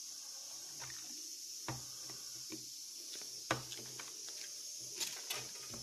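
Scattered small clicks and rustles of hands handling a surprise egg's yellow plastic toy capsule and foil wrappers, with the sharpest click about three and a half seconds in.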